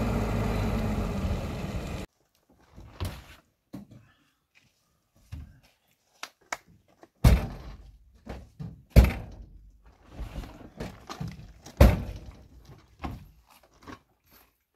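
A steady noise that cuts off abruptly about two seconds in, followed by a series of irregular knocks and thuds, three of them clearly louder than the rest.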